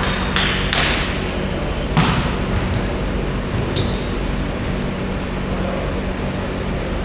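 Basketball game on an indoor court: the ball bouncing and sneakers squeaking on the floor over a steady low background din.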